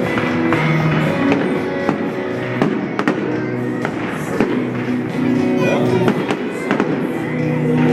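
Fireworks going off in a string of sharp bangs and cracks, heard over loud music with a steady beat.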